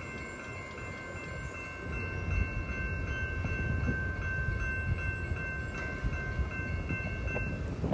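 A railway crossing warning bell ringing steadily over the low rumble of a passing freight train's cars; the bell stops just before the end.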